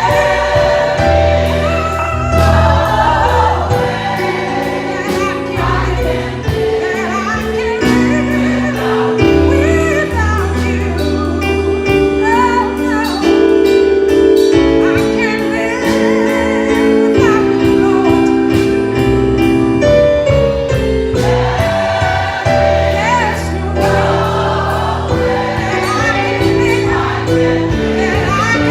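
Choir singing a gospel song in several parts, held notes over a steady bass accompaniment.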